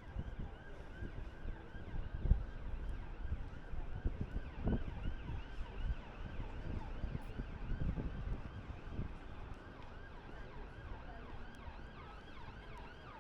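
Emergency vehicle siren in a fast yelp, rising and falling several times a second, over a low street rumble.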